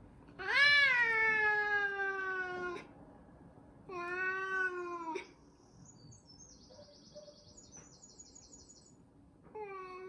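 Domestic tabby cat growling in long, drawn-out moaning yowls: one long call that rises then slowly sinks, a shorter one about four seconds in, and another starting near the end, a warning aimed at the other cat facing it.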